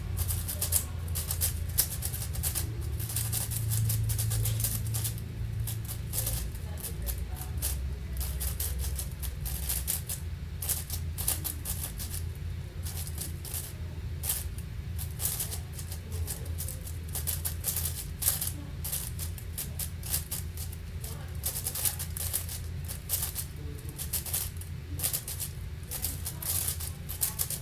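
A 7x7 speed cube (Angstrom AoFu WRM) being turned rapidly during a solve: a continuous stream of fast, irregular plastic clicks and clacks, over a steady low hum.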